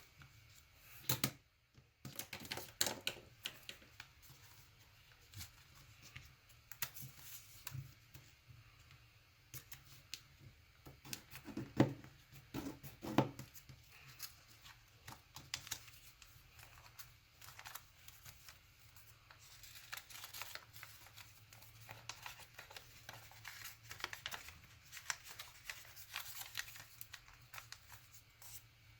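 A sheet of origami paper handled and folded by hand: irregular rustling and crisp creasing scrapes, with a couple of louder knocks near the middle.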